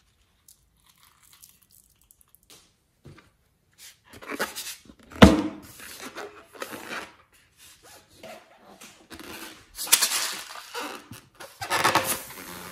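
Hands rubbing and squeezing a filled rubber balloon, giving irregular squeaks and rustles, with one sharp knock about five seconds in. The first few seconds are nearly quiet apart from a few faint clicks.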